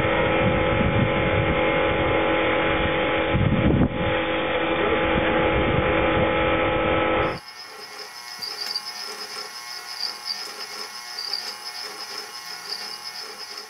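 Pressure washer running steadily, a loud motor and pump drone with spray on patio paving, cutting off suddenly about seven seconds in. After that comes a much quieter steady high whine with soft irregular clicking from a small motorized kinetic sculpture.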